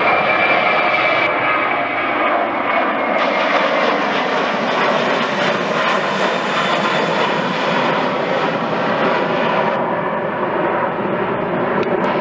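Lufthansa twin-engine jet airliner climbing out after takeoff at full thrust. Its engines give a loud, steady jet roar with whining tones that slowly drop in pitch as it draws away.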